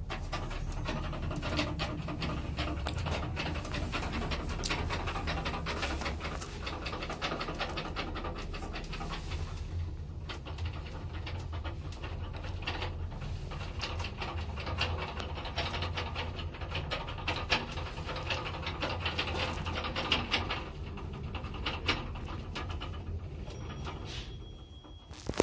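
1977 Zremb passenger elevator car travelling upward: a steady low hum with constant rattling and clicking from the car as it runs in the shaft. Near the end the noise dies down as the car slows and stops, and a short high tone sounds.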